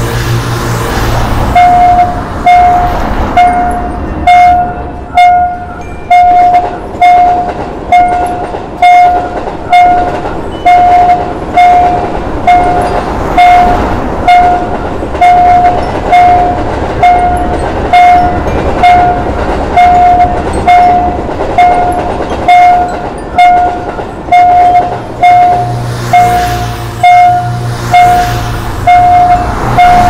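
Level crossing warning bell ringing in an even, repeated ding, about one and a half strikes a second, starting about two seconds in. Under it runs the noise of a passing train. Road vehicle engines are heard at the start and again near the end.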